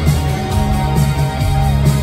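Rock band playing live through a PA, heard from the audience: electric guitars over bass and drums keeping a steady beat of about two strokes a second, with a note held through the middle.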